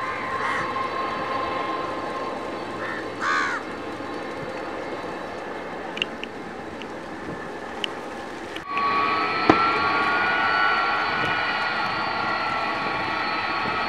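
Boeing 747-200F freighter's four General Electric turbofans running at taxi power, a steady jet whine with fixed high tones. A crow caws twice in the first few seconds. About two-thirds of the way through, the sound switches abruptly to a louder, closer engine whine with a tone that slowly rises.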